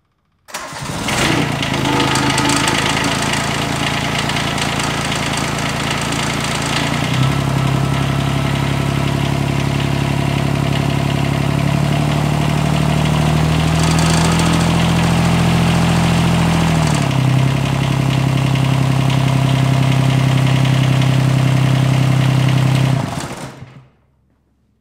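John Deere 332's 16 hp Yanmar three-cylinder diesel starting at once and running, a test start right after a new fuel filter and bleeding the fuel system. Its speed is raised about seven seconds in, and it is shut off about a second before the end.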